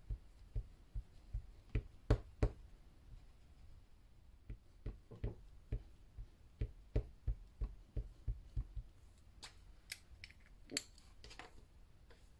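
Small ink stamps tapped against an ink pad and pressed onto paper on a tabletop: an irregular run of light knocks and clicks, about two to three a second, with a few sharper clicks near the end.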